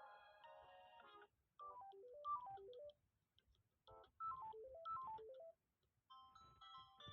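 Samsung Galaxy A03 ringtones playing. A short chiming chord sounds first. Then a quick melody of single electronic notes steps down and back up, with a pause after it, and plays a second time. A different tune starts near the end.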